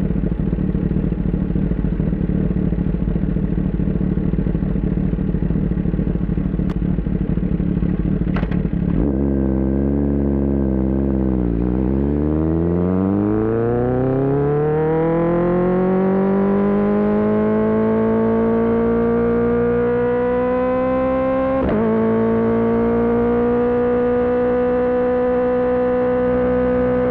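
Kawasaki ZX-10R inline-four sport bike heard from onboard. For the first third, a rough rushing noise covers the engine at speed. Then the engine note clears, drops as the bike slows, and rises again as it pulls out of the corner. A quick gear change comes about two-thirds through, and after it the engine holds a steady, higher drone.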